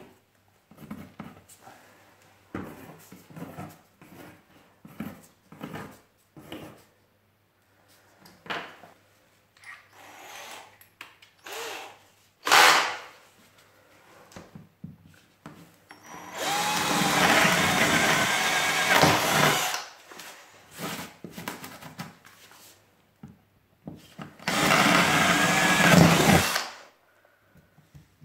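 Scattered small knocks and clicks of handling, then a power drill runs in two stretches of about three seconds each, the first about halfway through and the second near the end, its motor whine shifting in pitch.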